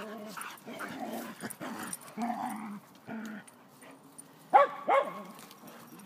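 Dogs at play: quieter scuffling and soft vocal noises in the first half, then two loud barks in quick succession about two-thirds of the way through.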